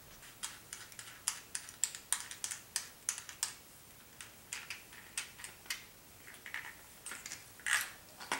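Small sharp clicks and taps of metal hand work, a few a second and irregular, as the nuts are taken off the studs of a new power window regulator. There is a slightly longer, louder scrape near the end.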